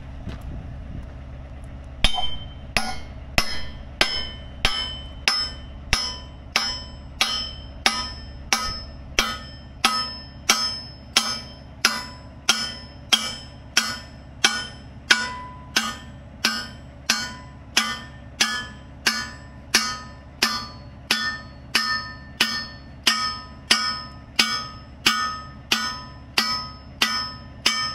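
Hammer striking steel over and over, about one and a half ringing blows a second starting about two seconds in, tapping the modified ripper into the excavator's quick coupler for a snug fit. A steady low hum runs underneath.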